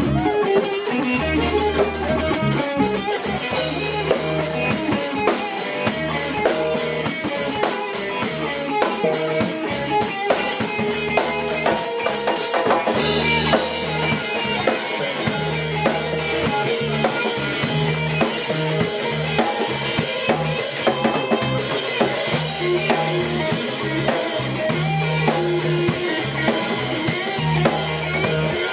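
A small rock band playing live: drum kit with bass drum, snare and cymbals keeping a steady beat under bass and guitar.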